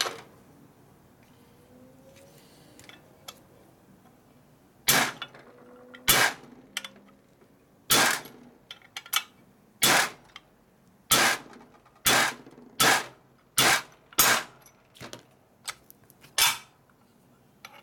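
Ball-peen hammer striking a pin punch about ten times, sharp metal-on-metal taps at uneven intervals of a second or less, starting about five seconds in, driving a roll pin out of the shifter shaft in a T5 transmission's shift cover.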